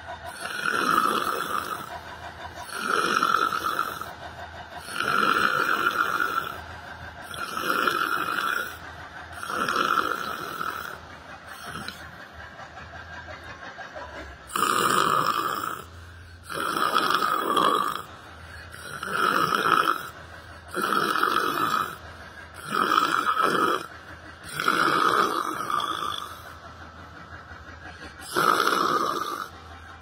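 A man making loud, rhythmic snoring sounds while awake with his mouth open: imitation snores. About a dozen drawn-out snores come every two seconds or so, with a pause of a few seconds a little before the middle.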